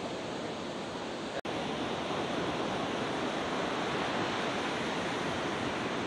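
Rough monsoon sea: a steady rush of many waves breaking on the beach. The sound cuts out for an instant about a second and a half in.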